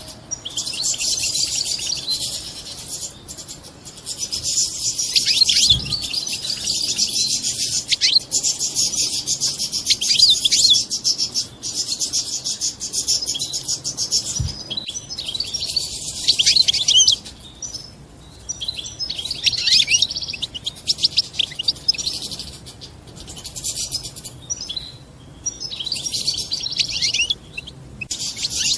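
European goldfinch twittering in fast, dense chatter, in long runs broken by short pauses. This is the 'batbata' chatter that keepers play to bring goldfinches into breeding condition.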